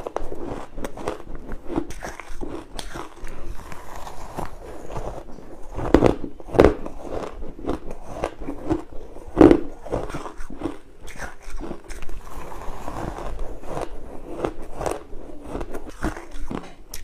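Crushed and shaved ice being bitten close to the microphone: a run of irregular crunching and crackling bites, with a few louder crunches about six and nine seconds in.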